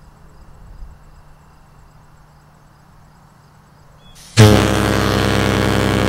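Leslie Tyfon 300 and Tyfon 425 ship air horns blowing together on compressed air, a deep two-note chord a major sixth apart, around 106 and 64 Hz. The blast starts suddenly about four and a half seconds in and is still sounding at the end.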